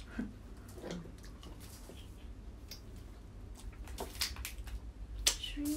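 Close-up eating sounds from a seafood meal: wet chewing and squishing, with scattered sharp clicks as crab, shrimp and mussels are picked apart by hand.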